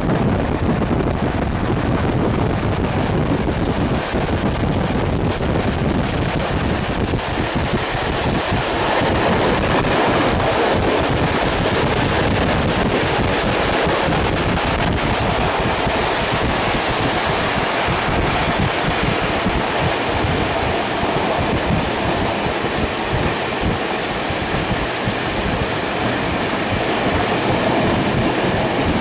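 Wind rushing over the microphone at an open carriage window of a moving passenger train, mixed with the steady running noise of the coaches on the rails.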